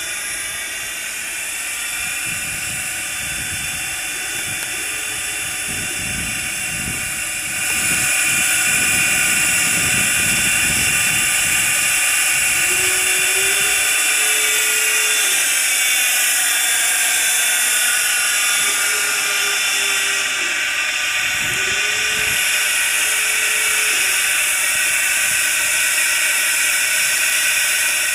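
Steam locomotive Great Western #90 hissing steam, a steady loud hiss with a high-pitched whine running through it, growing louder about a quarter of the way in.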